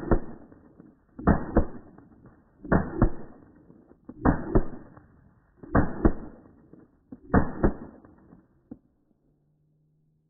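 Semi-automatic carbine fired in quick double shots, about one pair every second and a half, six pairs in all, stopping about nine seconds in.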